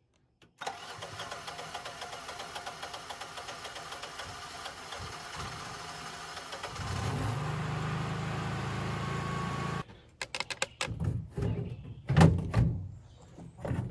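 Generac Guardian 10 kW propane standby generator's engine starting and running, at first lighter and pulsing, then louder and steadier from about seven seconds in, warming up on fresh oil after an oil change. It cuts off suddenly near ten seconds, and a series of knocks and thunks follows as the metal front panel of the enclosure is handled and fitted.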